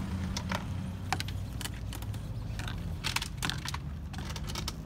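Vinyl mobile home skirting panel being pulled out of its top trim rail: a string of irregular plastic clicks and snaps, over a steady low hum.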